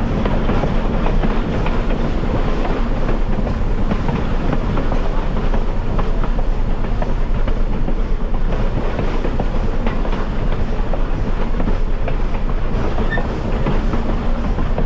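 Railroad passenger car rolling along the track: a steady rumble with the clicking and clatter of the wheels over the rails.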